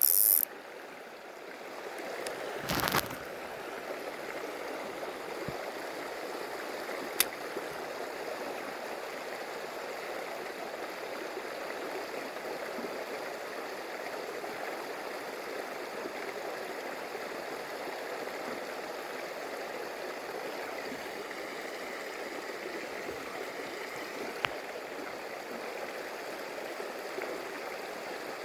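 Stream water running steadily over rocks, with a short rustling burst about three seconds in and two sharp clicks later on.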